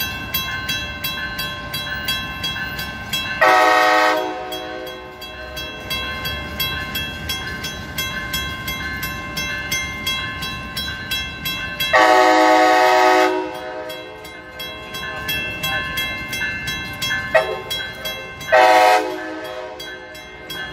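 Horn of a Brightline Siemens Charger SCB-40 locomotive sounding four blasts: long, long, short, long, the standard warning for a level crossing. A level-crossing bell rings steadily and rapidly under it, with the low rumble of the slowly approaching train.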